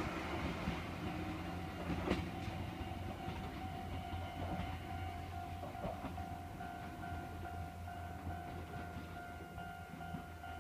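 Chichibu Railway 1000 series electric train pulling out and running off, a low rumble with a couple of clicks from the wheels over rail joints, slowly fading. A steady high tone sounds through most of it.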